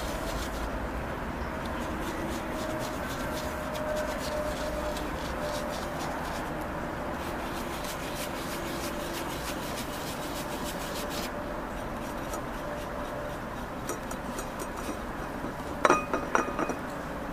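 Soft rubbing of a brush dry-brushing gold paint onto a crumpled-paper surface. Near the end comes a quick cluster of sharp clinks as the brush is worked against the hard plate holding the paint.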